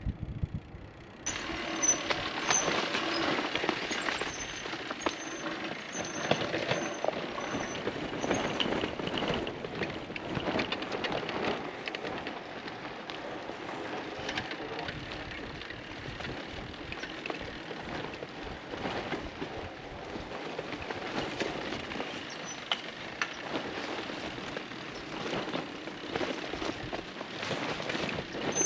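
Loaded Surly Ogre touring bicycles rolling over a dirt singletrack, a dense rattle and crunch of tyres, frames and bags over the bumps, with many small clicks. It begins suddenly about a second in, after a moment of wind noise.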